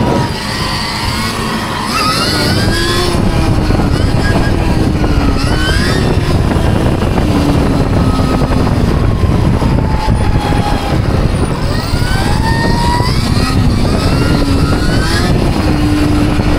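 Stark Varg electric dirt bike's motor whining, its pitch repeatedly rising and falling with the throttle, over heavy wind rumble on the microphone.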